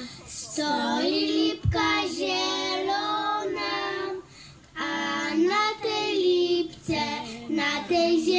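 Young girls singing a Podlasie folk song together, unaccompanied, in long held notes, with a short break for breath about four seconds in.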